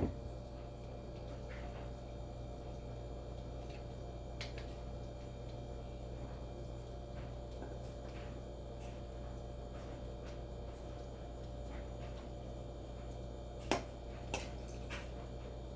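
Steady low electrical hum with a few faint ticks, then two short sharp knocks near the end.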